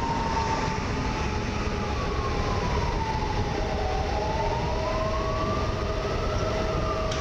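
PESA Dart ED161 electric multiple unit running under power, its traction equipment whining in several tones that slide slowly up and down, over the low rumble of the train on the track.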